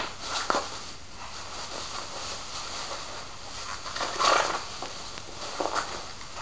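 Bubble wrap rustling and crinkling as a wrapped item is unwrapped by hand, in a few short bursts, the loudest about four seconds in.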